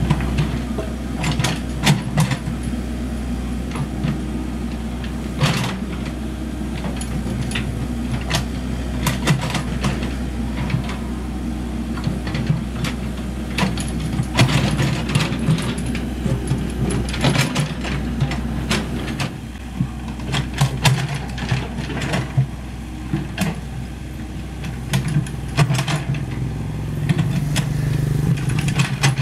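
Komatsu PC78US mini excavator's diesel engine running steadily, with frequent sharp clanks and scrapes as its steel bucket digs into soil and stones.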